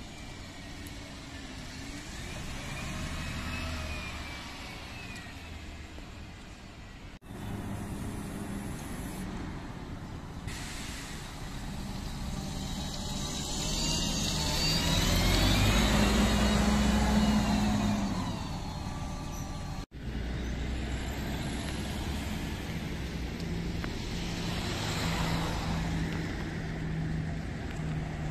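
City buses driving round a roundabout, engines running. The loudest moment comes about midway, as a bus passes close by with a rising and falling whine over the low engine hum. Two brief dropouts break the sound into three pieces, and near the end another bus approaches.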